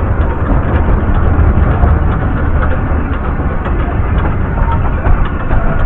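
Welsh Highland Railway train running, a loud steady rumble.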